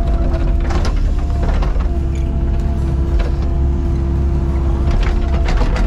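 Excavator's diesel engine running steadily with a constant hydraulic whine, and a few sharp clanks from the machine's working parts.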